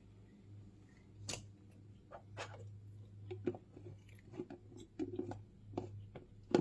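A person chewing a mouthful of cracker with chicken salad: a run of irregular short crunchy clicks close to the microphone.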